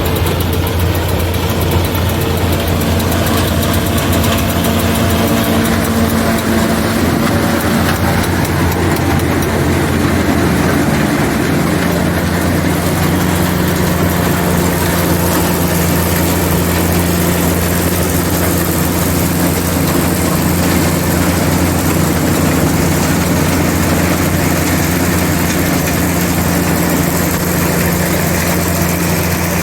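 Tractor engine and silage chopping machinery running steadily with a loud, even hum; the pitch of the hum shifts about ten seconds in.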